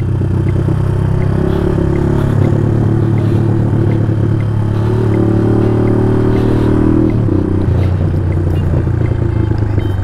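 Dual-sport motorcycle riding at a steady pace, with background music over it: sustained chords that change a few times over a light, even beat of about three ticks a second.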